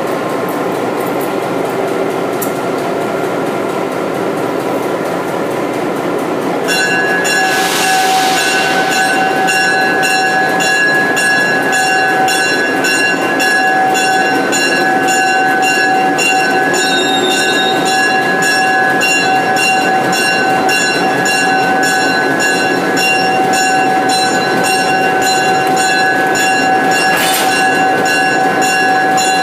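EMD GP7 diesel locomotive's 16-cylinder two-stroke engine running steadily. About seven seconds in it grows louder and a steady whine of several pitches comes in over the engine's fast even beat, with a brief hiss soon after and again near the end.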